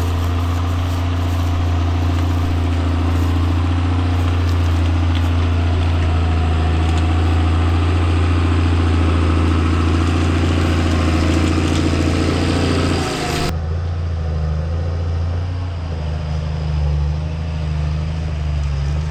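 Engine running steadily with a deep, even tone. About thirteen seconds in, the hiss above it cuts off suddenly while the engine keeps running.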